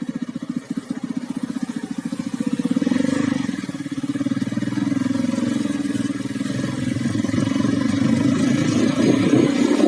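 Small motorcycle engine running with an even low pulse, picking up speed about three seconds in and again near the end.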